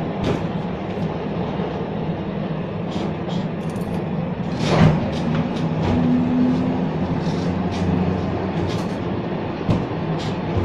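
Museum tram M 24 running along the street, heard from inside the passenger car: a steady rumble with scattered clicks and rattles. A louder knock comes about halfway through, and a brief hum follows a second or so later.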